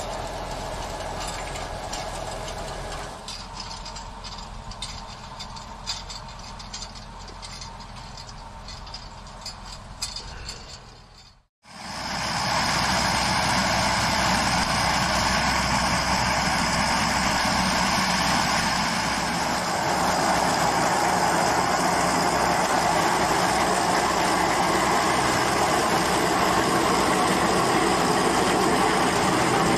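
Tractor engine and tractor-drawn peat machinery running, with light clicking and rattling, and quieter for the first part. About eleven seconds in the sound cuts out briefly, then a louder, steady engine and machine noise runs on.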